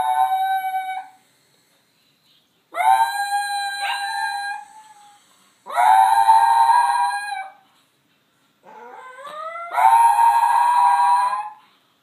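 Chinese Crested dog howling: a run of long, high howls of about two seconds each with short pauses between, the first already under way and stopping about a second in. The last howl slides up in pitch at its start.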